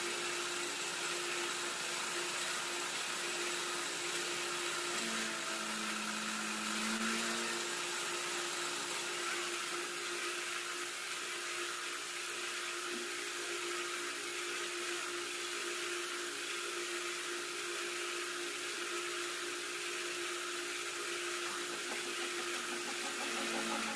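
Boring machine running as its boring bar rebores a motorcycle engine cylinder: a steady machine hum with a constant tone, and a second, lower tone that comes and goes.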